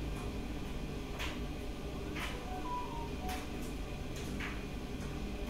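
Faint regular ticking, about one tick a second, over a steady low room hum. A short high tone sounds about halfway through.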